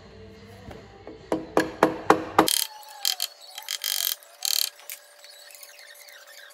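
Ratchet wrench working fasteners: a quick run of sharp clicks, then a few short bursts of ratcheting.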